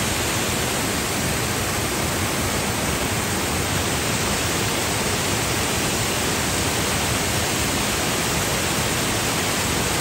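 Water pouring over a low dam's spillway: a steady, even rush of falling water.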